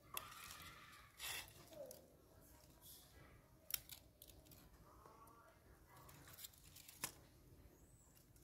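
Near silence, broken by a few faint sharp clicks and rustles and by faint voice-like sounds near the start and again about five seconds in.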